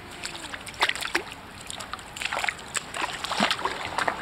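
Small, irregular splashes and sloshing of shallow water as a Pekin duck dips her bill and head in, dabbling for minnows, with a few sharper splashes about a second in and between two and three seconds.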